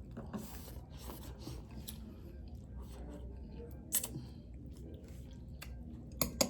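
A person chewing a mouthful of pho noodle soup close to the microphone, with a few sharp clicks about four seconds in and again near the end.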